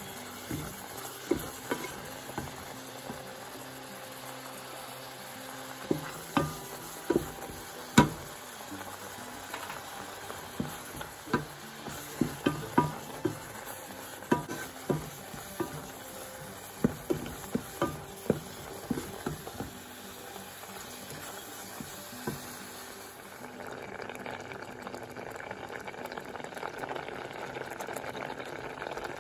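Wooden spoon stirring a thick rice, potato and kale mixture in a metal saucepan, knocking against the pot many times over a steady hiss. Near the end the knocking stops and the mixture simmers with a steady bubbling.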